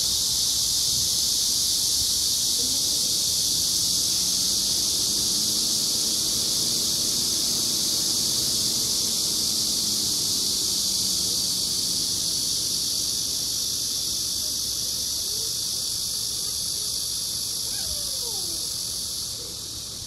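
Korean giant cicada buzzing: a continuous, loud, high-pitched drone with no breaks, tailing off near the end.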